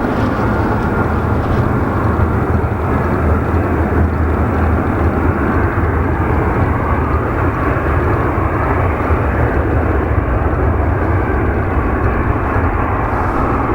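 Jet engine noise from an Embraer E175 regional jet's two turbofans at takeoff power: a steady, loud rumble with a deep low end that holds throughout.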